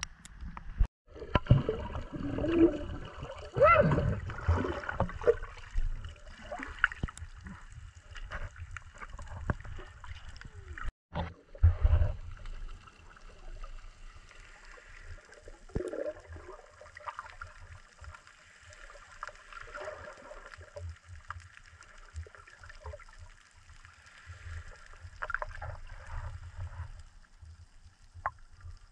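Sea water sloshing and gurgling around a GoPro at the surface, then the muffled sound of the submerged camera: a low rumble with scattered gurgles. The gurgling is loudest in the first few seconds, and the sound cuts out briefly about a second in and again near eleven seconds.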